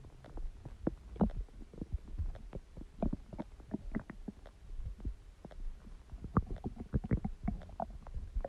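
Human stomach growling and gurgling: a quick, irregular run of small bubbling pops and squelches over a low rumble.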